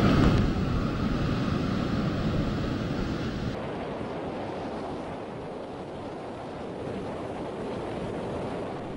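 Rough, storm-churned sea surf breaking, with wind noise: a steady rushing wash, loudest in the first second or so and changing slightly in character about three and a half seconds in.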